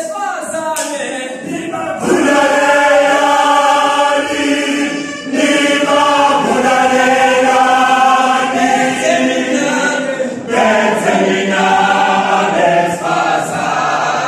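Male choir singing a cappella in the mbube style, in close held harmony. The singing comes in long phrases with short breaks about two, five and ten seconds in.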